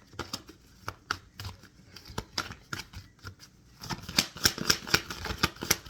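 Tarot cards being shuffled by hand: scattered card snaps, then a fast run of rapid card flicks starting about four seconds in.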